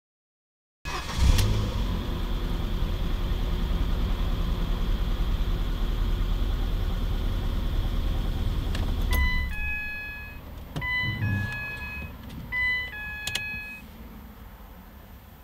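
A car engine running steadily, then dying away about nine seconds in. An electronic two-note chime then sounds three times.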